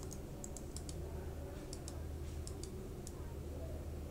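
Irregular clicking of a computer mouse and keyboard as a game is played, about a dozen light clicks in small clusters, over a steady low hum.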